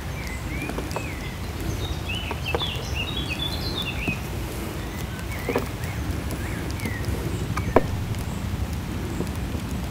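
Cutting-height adjustment levers on a lawn mower's wheels clicking into their notches as the deck is lowered, a handful of sharp clicks with the loudest near the end. Birds chirp in the background over a steady low outdoor noise.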